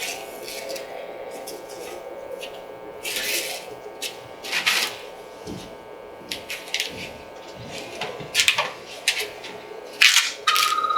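Rustling and handling sounds, a few short scuffs of fabric and strap, as a patient is settled on a treatment table and a Y-strap is fitted around the head, over a faint steady room hum. A brief steady high tone sounds near the end.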